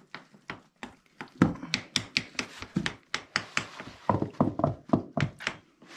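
Crepe batter being beaten by hand in a glass bowl: a utensil knocks and taps against the glass in a quick run of strokes, about three a second.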